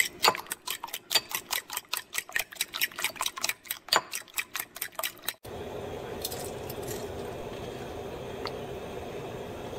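A fork beating eggs in a bowl, clicking rapidly against the bowl at about six strokes a second. About halfway through the clicking stops abruptly and a steady low rushing noise takes over, with a couple of faint taps.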